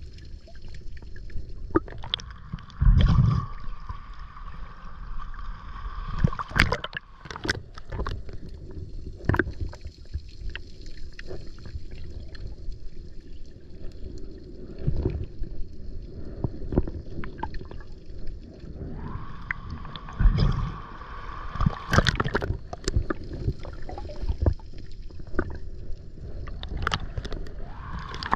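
Water sloshing and gurgling, with many scattered knocks and two heavier low thumps, one about three seconds in and one about twenty seconds in.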